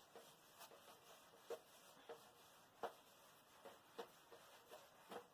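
Faint, irregular strokes of a hand-held chalkboard eraser wiping chalk off a blackboard, a soft scrape about twice a second.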